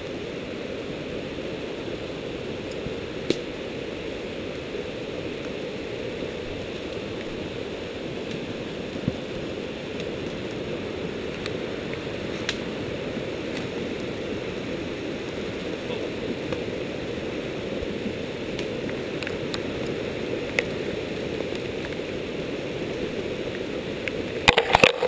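A creek rushing steadily, with a few single sharp clicks and a burst of louder knocks near the end.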